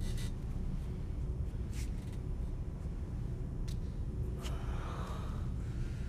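Low, steady rumbling drone of a film's background ambience, with a few faint clicks and a brief soft rustle about four and a half seconds in.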